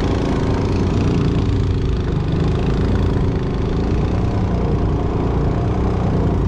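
Mud Skipper 7.5 HP surface drive mud motor running steadily at cruising throttle, pushing the jon boat along at about 8 mph.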